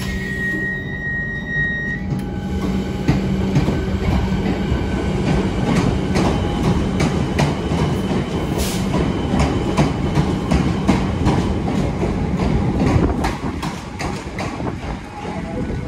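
A rail vehicle running on its tracks: a steady hum with a few held tones at first, then rapid clicking and knocking of wheels on rail for the rest of the time.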